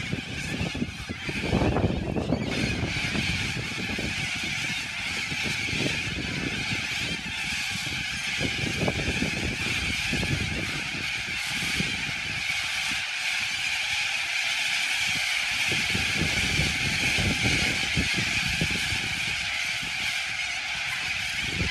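A big flock of little corellas screeching together in a dense, unbroken din.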